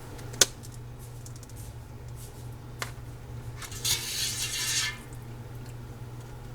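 Kitchen utensils and dishes being handled while chicken meat is picked over: a sharp clink about half a second in and a smaller one near three seconds, then about a second of scraping, rustling noise around four seconds in, over a steady low hum.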